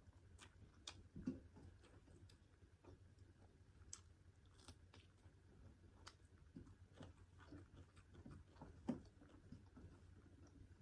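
Faint chewing and mouth sounds of someone eating pork curry and rice, with scattered small clicks and two soft thumps, one about a second in and one near the end.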